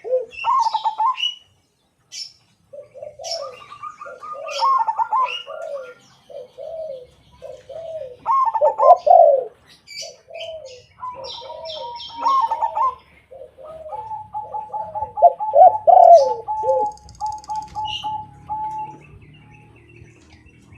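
A zebra dove and a white spotted dove cooing against each other, with repeated low coo phrases and a fast, even run of notes near the end. Short high chirps sound over them.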